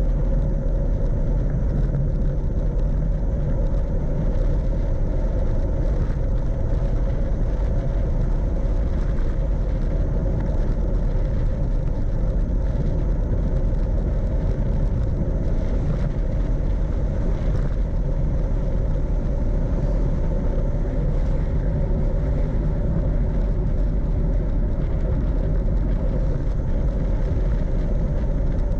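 Steady wind rumble on the microphone of a camera riding on a bicycle descending a paved road, mixed with the rolling noise of the tyres on asphalt.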